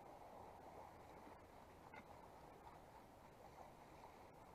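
Near silence: a faint, steady outdoor background hiss with no distinct events.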